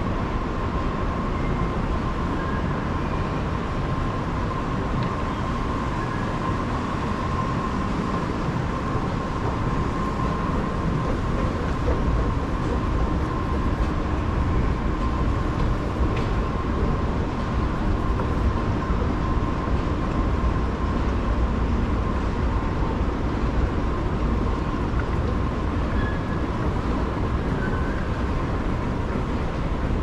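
Escalator running: a steady mechanical rumble with a faint constant hum, heard while riding it.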